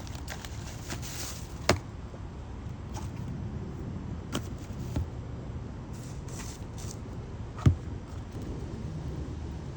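Seasoned chunks of chicken being mixed and handled by hand in a container, with brief rustles and a few sharp knocks, the loudest two just under two seconds in and near eight seconds. A steady low rumble runs underneath.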